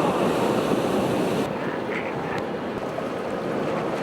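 Ocean surf rushing, with wind buffeting the microphone; the highest hiss drops away suddenly about one and a half seconds in.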